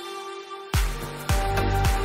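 Electronic background music: a held synth tone thins out, then about three-quarters of a second in a deep bass drop comes in with heavy, falling bass hits and a beat.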